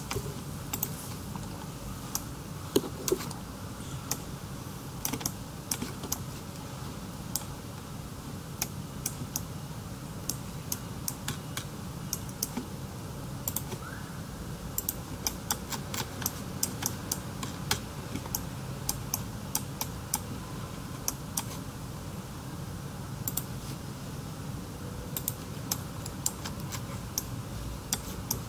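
Irregular clicking of a computer keyboard and mouse, dozens of short clicks at an uneven pace, over a steady low hum.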